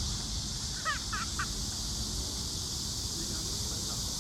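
Three short, quick bird calls about a second in, over a steady low rumble of wind on the microphone and a constant high hiss.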